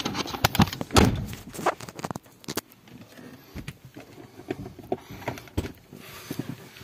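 Handling noise from a phone held in a car: knocks, rubs and clicks as fingers shift on it and it is moved about. The knocks are loudest and densest in the first two seconds, then thin out to scattered clicks.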